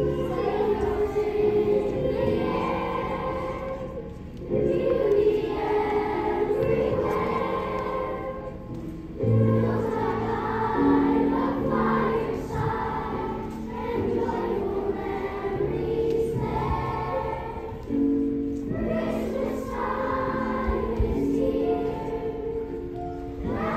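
Children's choir singing a song together over an instrumental accompaniment that holds low notes beneath the voices.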